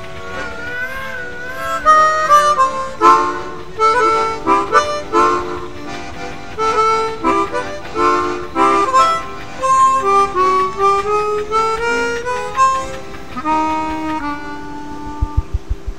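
Background music: a melody with wavering held notes, with a quick run of low thumps near the end.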